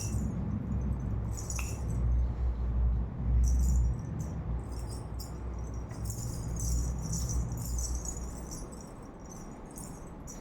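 A jingling rattle shaken in irregular short bursts, over a low rumbling handling noise that fades near the end.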